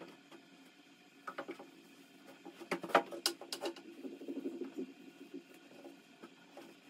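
Clothes being handled and sorted by hand, rustling, with a cluster of sharp light knocks about three seconds in from a plastic laundry basket being moved; the knocks are the loudest part.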